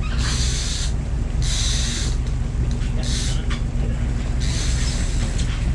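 Boat engine running steadily, a low hum, with four short high-pitched hissing bursts spread through it.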